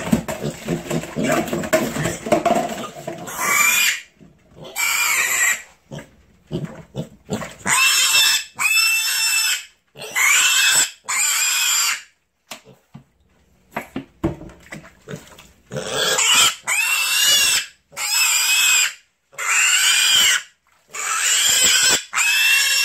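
Mini piglet squealing over and over: about ten long, high squeals with short gaps between them, after lower, rapid calls in the first three seconds.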